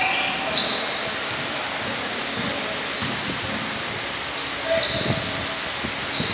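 Basketball shoes squeaking on a hardwood court during play, in short high squeaks scattered through, with a few dull thuds of the ball bouncing in the second half.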